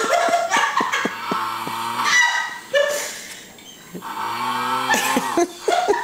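Snoring turned into flat, robotic electronic honks by an Optimus Prime voice-changer helmet held over the sleeper's face. Two held honks come under a second each, between runs of rapid clicking buzz.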